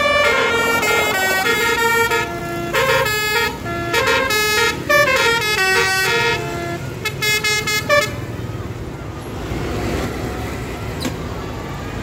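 Tourist bus's telolet basuri musical air horn playing a quick melody of stepped notes, which stops about eight seconds in and leaves steady traffic noise.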